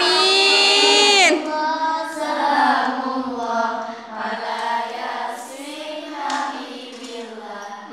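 A young girl singing solo: a loud, high held note that falls away about a second in, then softer, winding melodic phrases.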